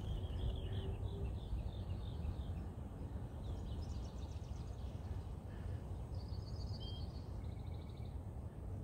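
Small birds chirping in short repeated series and trills, with one brief clear note about seven seconds in, over a steady low rumble.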